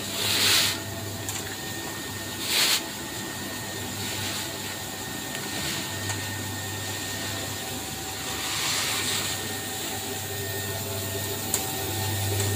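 Feed mixer with a screw auger running steadily under test, a constant mechanical hum, with a few brief swells of rushing noise.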